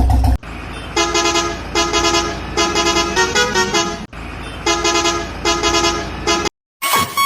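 Vehicle horn honking a short pattern of toots that changes pitch, over steady engine noise, played twice and cut off suddenly about six and a half seconds in. Electronic music with a beat starts near the end.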